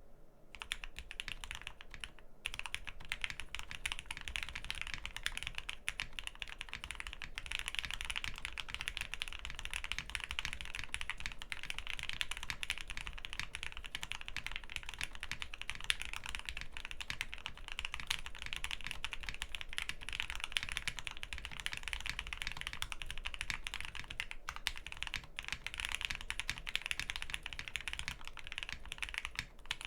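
Undampened Jelly Epoch 75% mechanical keyboard with a polycarbonate plate, OP Black switches and ePBT keycaps being typed on continuously at a fast pace, a poppy keystroke sound. Typing starts about half a second in, with a brief pause a little over two seconds in and another just before the end.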